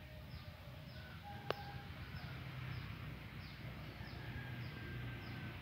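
A bird calling in the background: a short, high, falling note repeated about every two-thirds of a second, over a low rumble. One sharp click comes about a second and a half in.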